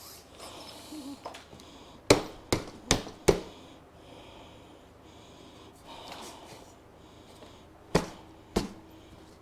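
Tyre pump inflating an inner tube: soft puffs of air, with four sharp knocks in quick succession about two seconds in and two more near the end.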